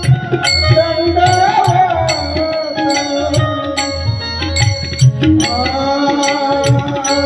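Marathi kirtan music: a melody over held sustained notes, with a hand drum beating and small cymbals clinking in a steady rhythm.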